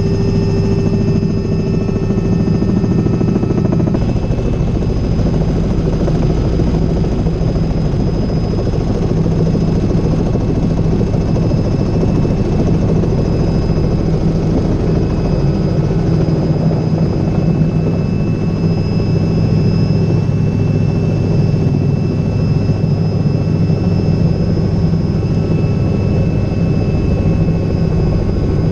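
Cabin noise of a Robinson R66 helicopter's turbine engine and rotors running steadily, a heavy low drone with a thin high whine over it, as it comes in to land.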